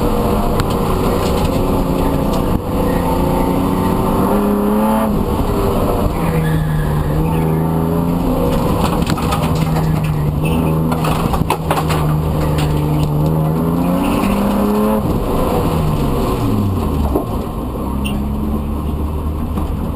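BMW E36 325i's inline-six engine under hard driving, heard from inside the stripped cabin: revs rise and fall repeatedly, hold steady for several seconds midway, then sweep down and quieten about three seconds before the end.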